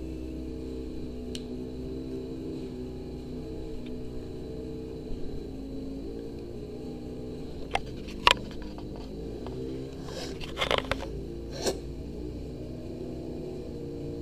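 Orange kitten hissing and spitting at a hand reaching toward it: two short sharp spits near the middle, then a run of hisses lasting about a second and one more spit shortly after. It is a defensive warning. Steady background music plays underneath.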